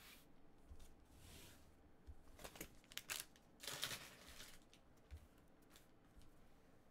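Near silence, broken by a few faint clicks and a brief soft rustle about four seconds in.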